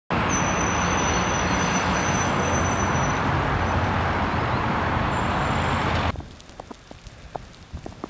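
Steady road-traffic noise, a rumble with a hiss over it, with a thin high whistle over the first few seconds. About six seconds in it cuts off abruptly, leaving a much quieter background with scattered faint ticks and crackles.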